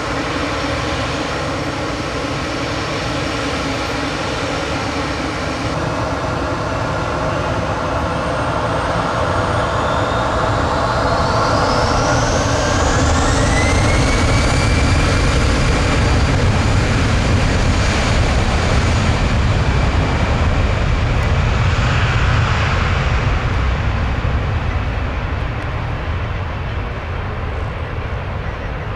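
Airbus A319 airliner's jet engines spooling up to takeoff thrust. A whine rises in pitch about ten to fourteen seconds in, over a deep rumble that grows louder. The sound then eases off as the jet accelerates away down the runway.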